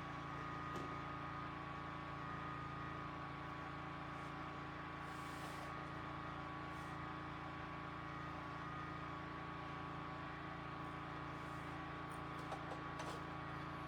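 Generator running steadily in the background, a constant engine hum with a faint high whine.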